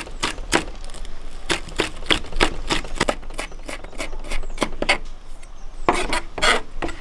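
Kitchen knife slicing spring onion on a plastic cutting board: quick, regular chopping strokes, about three a second, with a short pause about five seconds in.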